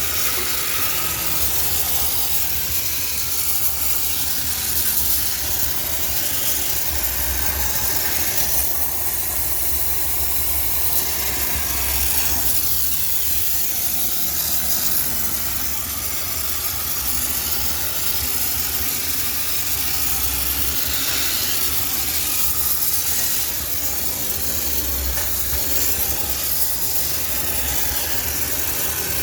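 High-pressure steam sterilizer jetting steam: a steady, loud hiss over a low machine hum that swells now and then.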